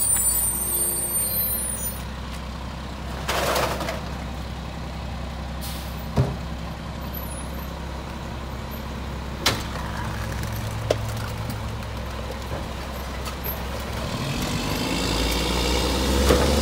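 Mack MR garbage truck's diesel engine idling steadily, with a short air hiss at the start and a few sharp clunks as recycling is thrown into the rear hopper. Near the end the engine revs up with rising pitch as the truck pulls away.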